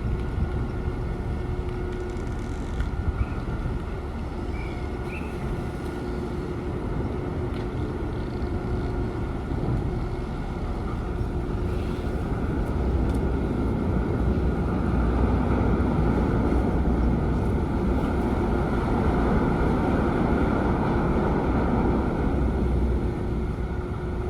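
Car ferry's engines and propellers rumbling steadily as the ship manoeuvres to berth, with a steady hum over the rumble; it grows louder about halfway through.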